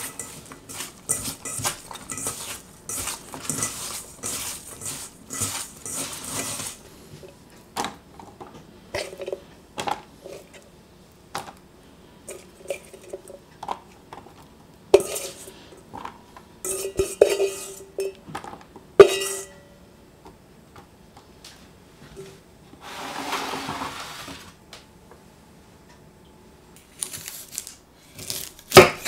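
Food-prep handling sounds: hands tossing oiled parsnip peelings in a stainless steel bowl, with rustling and light scraping for the first several seconds. Then scattered metal clanks and clinks as the peelings are spread on a metal baking sheet, and a knife starts cutting on a wooden board near the end.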